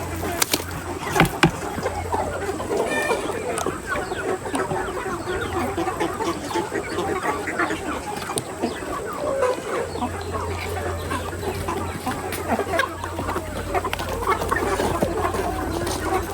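A flock of chickens clucking continuously, many birds calling over one another. There are a few sharp clicks in the first second or so.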